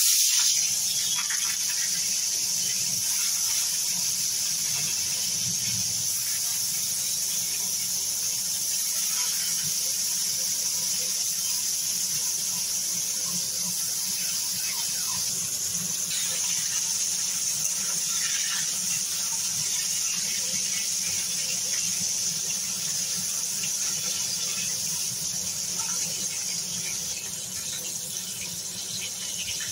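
Koi fish (climbing perch) frying in hot mustard oil in a kadai: a steady high sizzle that starts sharply as the fish go into the oil and eases slightly near the end.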